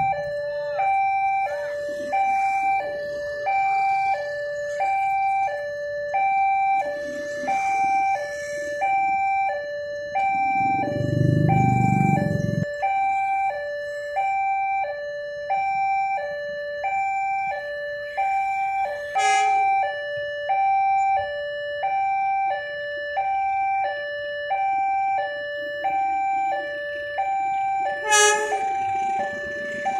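Railroad level-crossing warning alarm: an electronic two-tone chime alternating steadily between a lower and a higher note about every two-thirds of a second. A motorcycle engine passes close about eleven seconds in, and a low rumble builds near the end as a train approaches.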